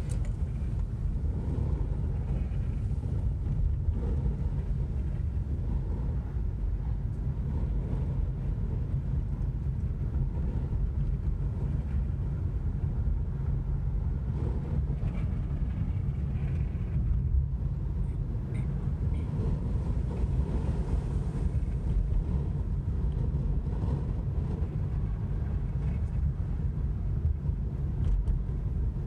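Strong gusty wind blowing against the microphone: a continuous low rumble that swells and eases without letting up.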